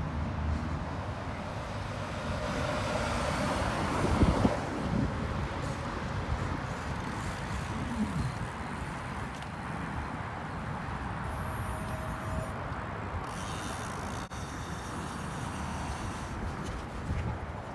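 Street traffic going by, with wind rushing over the microphone while riding a bike along a city road. A louder swell comes about four seconds in, and a short falling sweep around eight seconds, like a vehicle passing.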